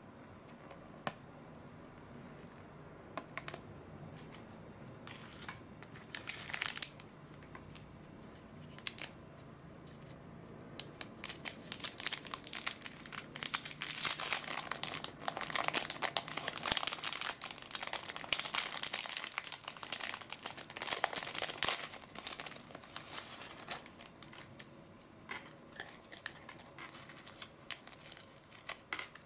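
Small paper and plastic wrappings being handled, crinkled and unfolded by hand. There are a few scattered rustles at first, dense crinkling through the middle, then lighter rustles near the end.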